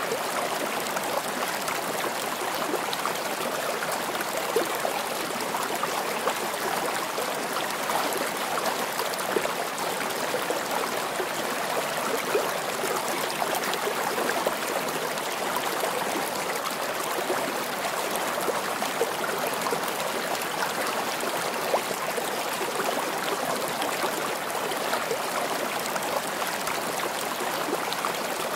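Steady sound of a flowing stream: an even rush of running water with small irregular peaks.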